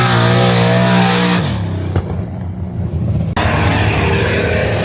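Car engine revving, its pitch rising and falling, then dropping away about one and a half seconds in, with abrupt cuts between short stretches of running.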